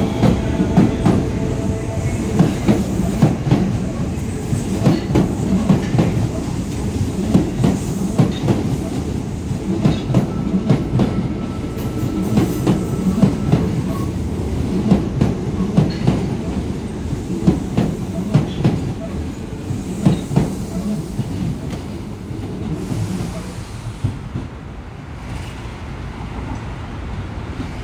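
Osaka Metro Midosuji Line subway train pulling out of the station, its wheels clattering rapidly over the rail joints above a steady rumble. The sound fades as the train draws away near the end.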